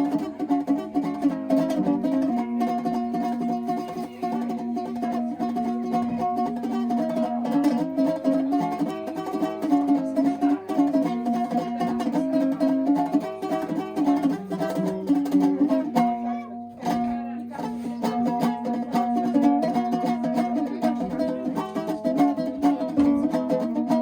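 Background music: a quick plucked-string tune in the mandolin or ukulele range, with a brief break about two-thirds of the way through.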